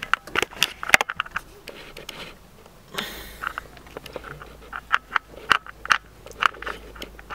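Handling noise from a handheld camera being turned and repositioned: irregular clicks, knocks and rubbing, some sharp and loud.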